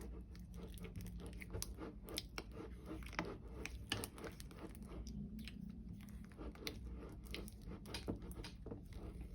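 Elmer's glue and slime activator being stirred together in a bowl: faint, irregular sticky clicks and crackles as the glue starts to thicken into slime.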